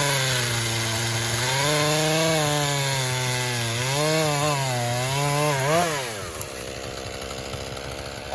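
Husqvarna two-stroke chainsaw running at full throttle, its pitch sagging and recovering as it works through wood. It revs up sharply about six seconds in, then drops back to a quiet idle, with a short blip of the throttle at the very end.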